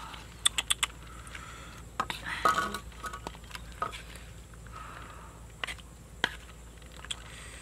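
A ladle knocking and scraping against a cooking pot while scooping out a thick snake and chilli stir-fry: a quick run of four sharp clinks about half a second in, a busier clatter with a short ring around two to three seconds, then single knocks.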